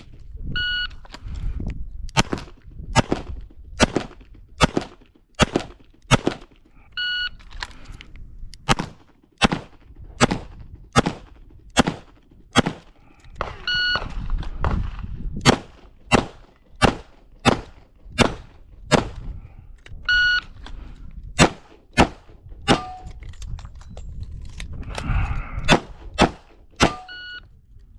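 Smith & Wesson 625 revolver firing .45 ACP in quick strings of shots with short pauses between them. A short electronic beep sounds about every six and a half seconds.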